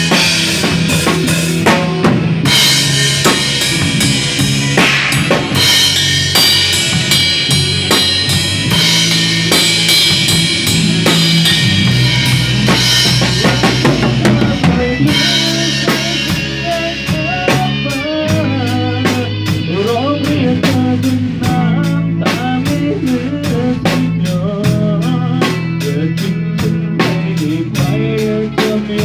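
Instrumental break of a band playing a Thai pop song: a drum kit keeps a steady beat over sustained bass notes, and a lead melody line comes in about halfway through.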